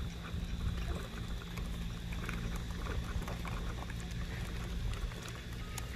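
A vehicle engine running steadily with a low hum, with scattered small clicks and rattles.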